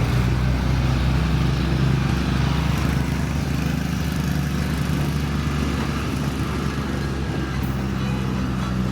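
Engine running steadily, a low drone with a few even tones underneath.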